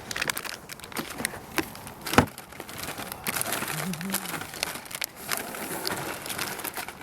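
A bag crinkling and rustling as it is handled and opened, in irregular short strokes, with one sharp click about two seconds in.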